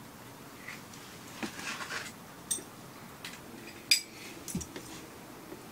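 Metal utensils clinking against cookware a few times, the sharpest clink about four seconds in, with light rustling about a second and a half in.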